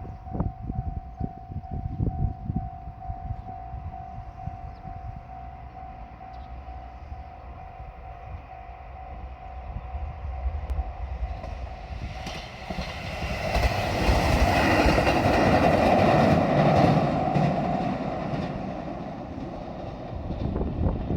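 Level-crossing warning bell sounding steadily, then a JR Shikoku diesel train rumbles past the crossing from about halfway through, loudest a few seconds later and fading near the end. Wind buffets the microphone throughout.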